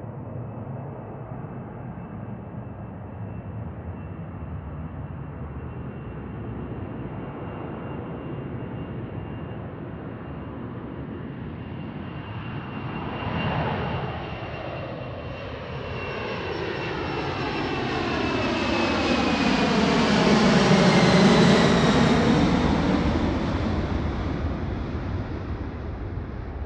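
Jet airliner's engines at takeoff thrust, growing louder as it approaches, loudest about 21 seconds in as it passes closest, then fading. A high engine whine runs throughout and drops in pitch as the aircraft moves away.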